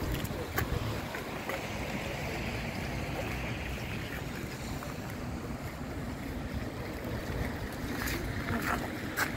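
Steady road traffic noise from cars and buses driving along a city street, with a few brief clicks about half a second in and again near the end.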